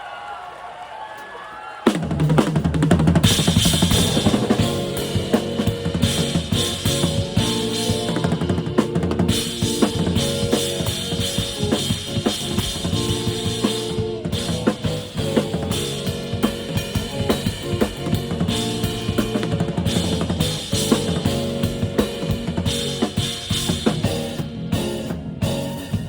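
Drum kit played over a backing track: bass drum, snare and rimshot strokes over a steady musical bed, coming in suddenly about two seconds in.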